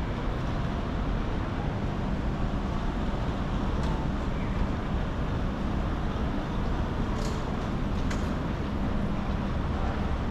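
Steady ambience of a crowded railway station: indistinct chatter of passing people over a low rumble. There are two short sharp clicks about seven and eight seconds in.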